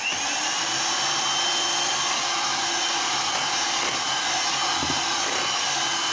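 Electric hand mixer switched on and running steadily, its beaters whipping whipped cream with red food colouring folded in; the motor's whine rises briefly as it spins up, then holds at one pitch.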